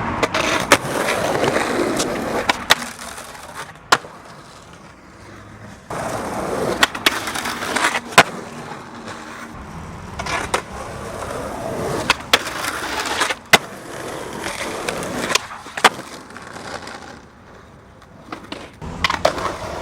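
Skateboard wheels rolling over several runs, broken by sharp clacks of the board: pops, landings and the board slapping down.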